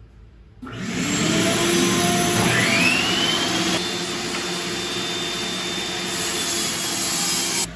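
Benchtop table saw starting up and running loud while cutting oak boards, with a whine that rises about two seconds in and then holds steady. The saw noise starts suddenly about half a second in and cuts off abruptly near the end.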